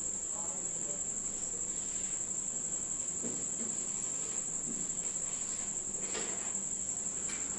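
A steady high-pitched trill runs throughout. Over it come a few faint strokes of a marker writing on a whiteboard.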